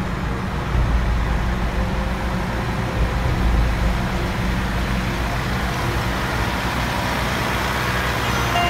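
Fire engine's engine running steadily nearby, a continuous low rumble.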